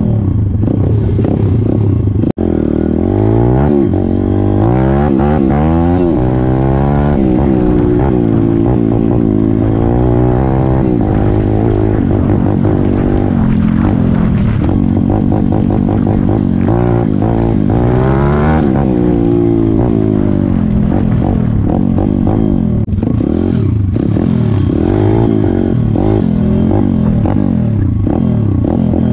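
Pit bike's small single-cylinder engine ridden along a track, revving up and dropping back again and again as the rider accelerates and shifts, heard from a helmet-mounted camera with wind noise.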